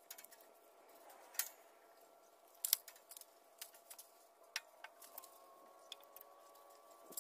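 Faint clicks and light taps as a rag wipes mineral oil over the painted sheet-metal housing of a pellet grill, the two loudest about one and a half and nearly three seconds in. A faint steady hum runs underneath.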